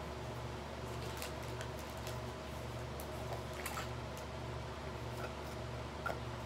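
Plastic makeup palettes and compacts being handled and set down, a scatter of light clicks and taps, over a steady low hum that pulses about twice a second.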